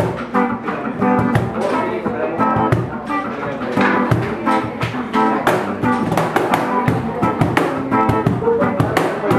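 A small band playing reggae live: electric guitar chords over an acoustic guitar, with a cajón slapped in a steady beat.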